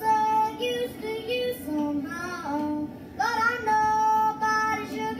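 A young boy yodeling, his voice flipping abruptly between high and low held notes, played back through a TV speaker.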